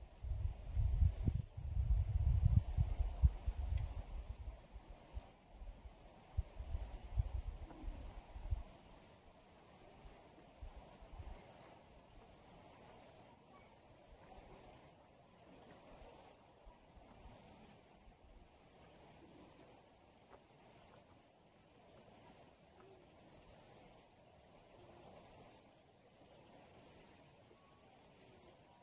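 An insect trilling high-pitched in repeated bursts, about one burst every second and a half with short breaks between. Wind buffets the microphone with a low rumble for the first several seconds.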